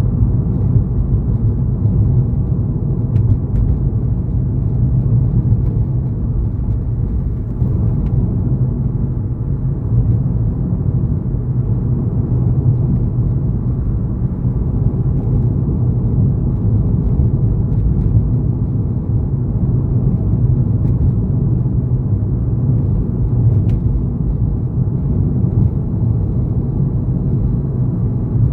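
Road noise of a car driving at steady speed: a constant low rumble of tyres and engine.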